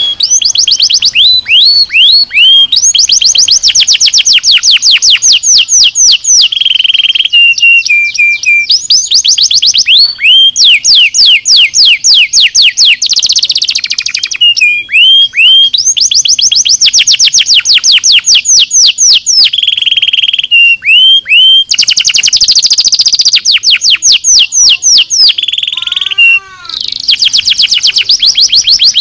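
Domestic canary singing a continuous song of rapid trills: runs of fast, repeated down-slurred notes, each run a different phrase lasting a second or two. Near the end comes a brief, lower, rolling phrase.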